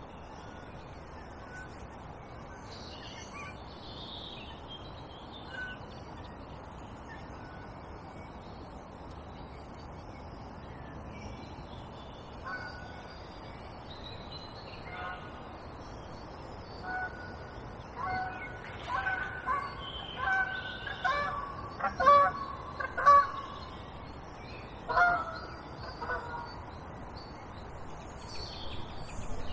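Waterfowl calling: a run of short, loud, repeated calls that begins faintly about twelve seconds in and is loudest between about eighteen and twenty-six seconds in. Small birds chirp faintly throughout.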